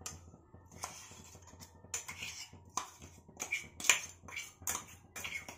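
Steel spoon scraping and tapping freshly grated coconut out of a steel container: a series of light metal clinks and scrapes, the sharpest about four seconds in.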